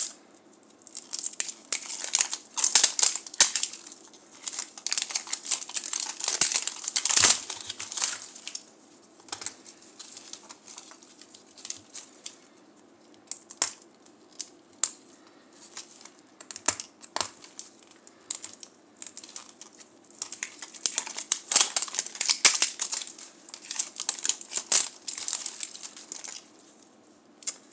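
Thin plastic wrapping strips crinkling and tearing as they are peeled off a Toy Mini Brands capsule ball. The rustling comes in busy bursts in the first several seconds and again near the end, with sparser crinkles and small clicks from handling the plastic capsule in between.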